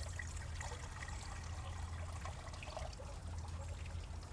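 Water trickling, with a steady low hum underneath.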